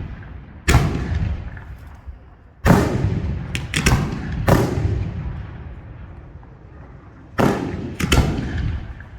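Large professional display fireworks (category F4) firing close by: about seven loud bangs at irregular intervals, two or three in quick succession in the middle and a pair near the end, each trailing off in a long rolling echo.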